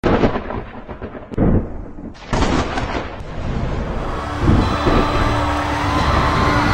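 Deep, thunder-like booms, three heavy hits in the first half, that blend into a concert's pre-show sound about four seconds in: held synth tones and a gliding tone over a steady crowd din.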